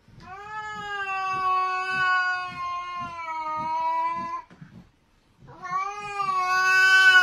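Cat yowling at another cat in a standoff: one long, steady wail of about four seconds, then after a short pause a second wail that rises to its loudest near the end.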